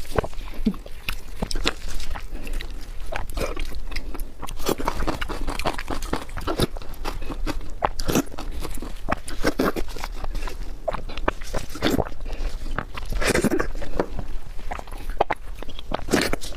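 Close-miked eating: irregular crunching, biting and chewing of food, a rapid run of sharp crackles and wet clicks.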